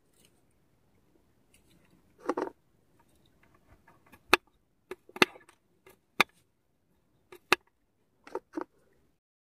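Small kitchen knife cutting garlic cloves on a wooden chopping board: sharp taps of the blade hitting the board, spaced about a second apart, with a softer, longer rustle about two seconds in.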